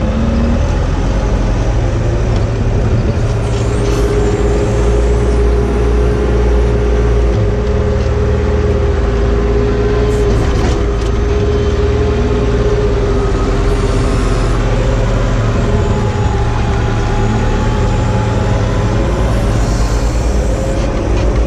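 Telehandler's diesel engine running steadily, heard from inside its cab as the machine drives, with a steady mid-pitched whine through much of it.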